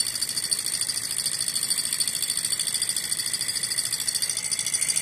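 Alpha-type hot-air Stirling engine model running steadily on its alcohol burner, a fast, even mechanical rhythm from its pistons, crank and flywheel.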